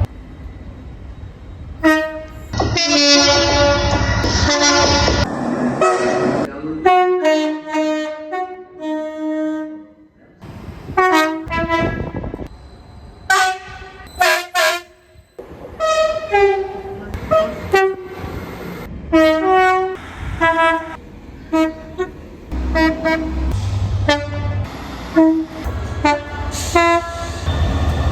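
Train horn blasts at many different pitches, short toots and held notes following one another like a tune. A deep rumble lies under the first few seconds and again near the end.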